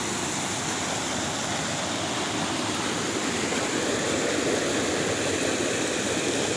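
Small waterfall pouring over rock into a pool: a steady rushing of falling water.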